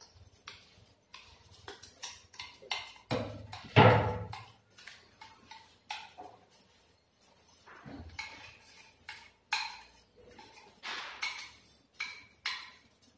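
Steel mixer-grinder jar clinking and knocking against a steel bowl as ground paste is scraped and tapped out of it, with a wrist of bangles jingling. A heavier knock comes about four seconds in.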